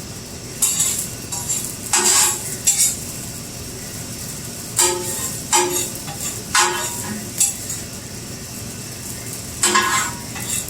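Metal spatula scraping and clanking on a flat-top griddle in about ten short strokes, some of them ringing briefly, with food sizzling on the hot griddle underneath.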